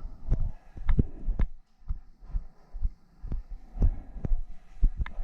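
Footsteps: heavy, uneven thuds about two a second, each with a light click on top.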